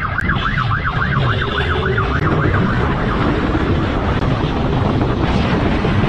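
Police siren on a fast yelp, rising and falling about five times a second, that stops about two and a half seconds in. A motorcycle's engine and wind rush run steadily underneath.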